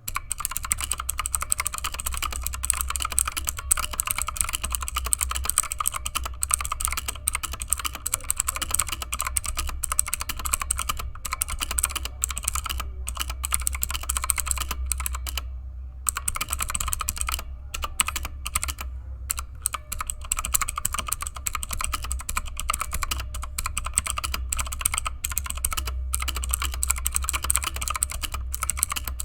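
Fast, continuous typing on a Redragon Kumara K552 mechanical keyboard with clicky blue (Outemu) switches, O-rings fitted under the keycaps to dampen the bottom-out, with a few short pauses about halfway through. A steady low hum runs underneath.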